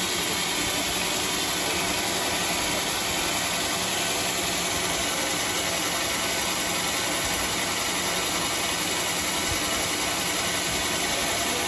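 Homemade band sawmill running with a steady, even mechanical noise.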